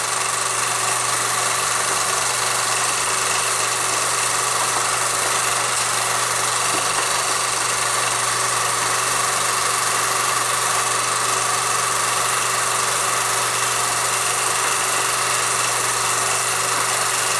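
Film projector running with a steady whirr and hiss and a constant low hum.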